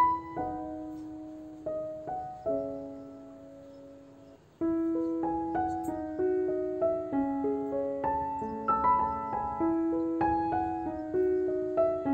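Background piano music: a slow phrase of struck notes that fades out, then from about four and a half seconds in a livelier run of notes.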